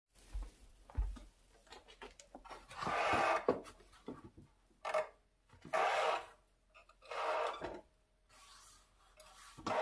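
Wooden boards being handled, with two low knocks in the first second and then several irregular scraping rubs of wood against wood, each lasting under a second.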